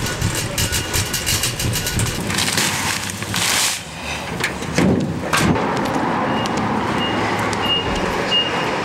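A wire shopping cart rattling as it is pushed, with quick clattering clicks, then steady vehicle traffic noise outdoors with a couple of knocks.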